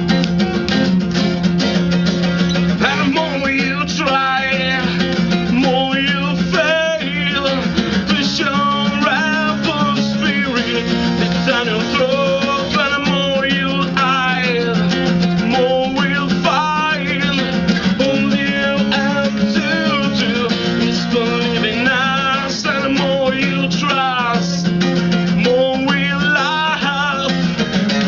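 Acoustic band music played live: steady guitar chords under a wavering melody line that bends up and down.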